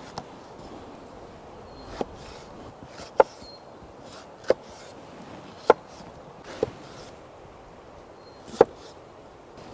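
Chopping on wood: a blade striking wood in seven sharp, separate chops at uneven intervals of about one to two seconds.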